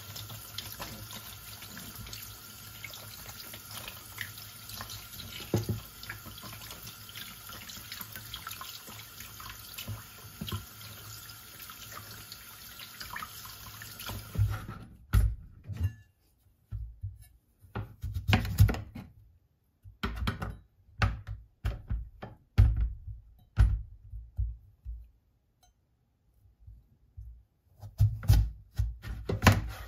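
Kitchen tap running steadily into a stainless steel sink while raw chicken drumsticks are rinsed by hand; the water stops suddenly about halfway. Then come separate knocks and thuds, ending with a knife cutting through a green papaya onto a plastic cutting board.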